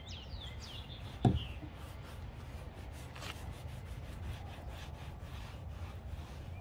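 Cloth rubbing and wiping over a kayak hull as it is cleaned with alcohol, with one sharp thump about a second in.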